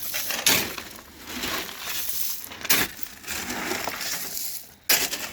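Gravel being unloaded from a pickup bed: a gritty crunching and rattling of stones, broken by sharp crunching strikes about every two seconds.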